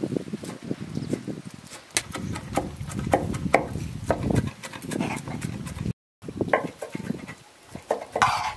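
Scattered light clicks, clinks and knocks of cooked food being handled: skewers and a spoon against an enamel plate of grilled quail, and a knife on a wooden cutting board.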